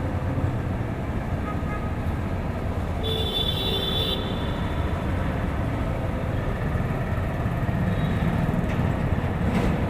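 Steady low rumble, like a running vehicle or traffic, with a brief high-pitched tone and hiss about three seconds in.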